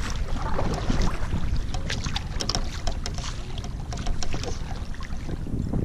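Water splashing and sloshing around a kayak in choppy water, with a cluster of sharp splashes and drips a couple of seconds in, over a steady low wind rumble on the microphone.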